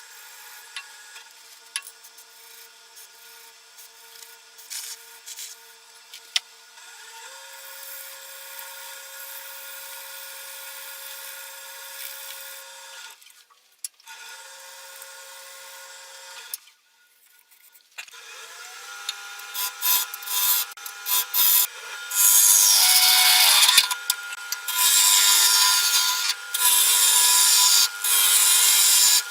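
Wood lathe spinning a wooden bowl blank, its motor giving a steady whine that rises in pitch twice as the speed is turned up. Near the end a tool bites into the spinning wood in loud repeated rasping passes.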